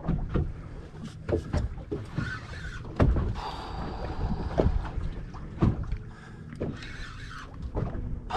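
Water slapping against a boat hull over a low rumble of wind on the microphone, with irregular sharp knocks, the loudest about three seconds in.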